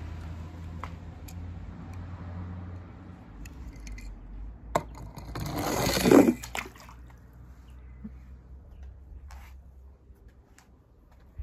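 Small die-cast toy car running down a plastic slide, a rising rush that ends in a splash into pool water just after six seconds in, with a few sharp clicks before it.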